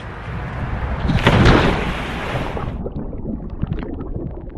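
A big splash into a swimming pool, loudest about a second and a half in. Then muffled bubbling and crackling as the action camera's microphone sits underwater among the bubbles.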